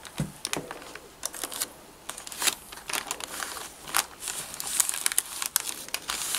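Brown paper crinkling and rustling as it is folded around a bacon-wrapped meat roll and pressed down by hand. It comes as scattered crackles that get busier about halfway through.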